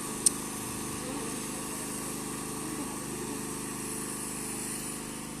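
A small engine running steadily with an even drone, and one sharp click about a quarter of a second in.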